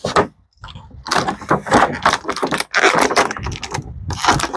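Hard plastic action-figure packaging and small plastic accessories being handled, giving an irregular rustling and clicking.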